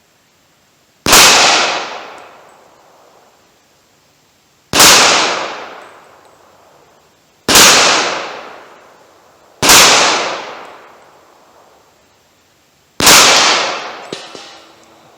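Five single shots from a Glock 41 .45 ACP pistol, fired at an uneven pace a few seconds apart, each a sharp crack trailing off over a second or two.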